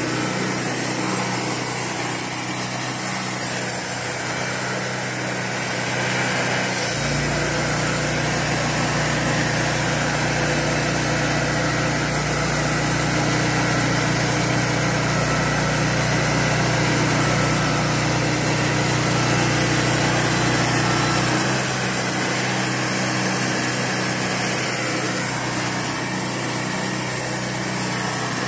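Portable bandsaw sawmill running, its engine and band blade sawing through a cedar cant. A lower, heavier tone joins the steady running sound about seven seconds in and drops away again about twenty-one seconds in.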